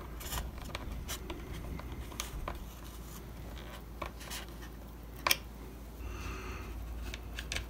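Small screwdriver turning tiny countersunk screws into an RC airplane's tail: faint scratchy ticks and rubbing, with one sharp click about five seconds in.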